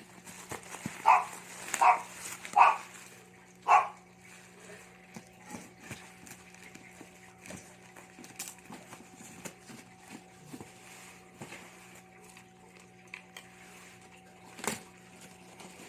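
A dog barks four times in the first four seconds. Light clicks and taps follow, with one sharp knock near the end, over a steady low hum.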